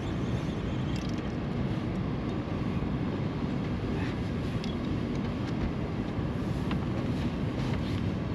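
Steady low rumble of wind and moving water on an open boat, with a few faint clicks scattered through it.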